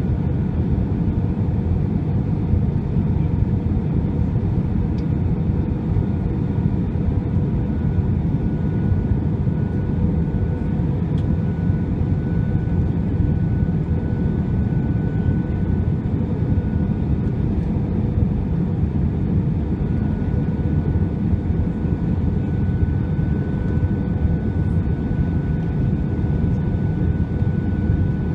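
Airbus A320 cabin noise during the descent to land: a steady low roar of engines and rushing air, with a faint high whine that comes and goes.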